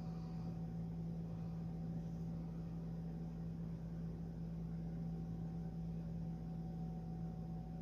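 Steady low hum with a faint higher tone above it and a light hiss, unchanging throughout, with no distinct events.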